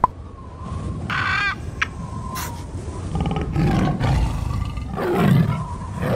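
Big cat roar sound effects, several deep roars in the second half, with a short shrill animal call about a second in.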